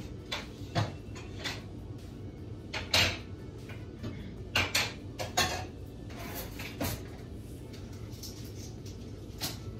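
Scattered kitchen knocks and clicks of things being handled off to the side, about ten in all with the sharpest about three seconds in, over a steady low hum.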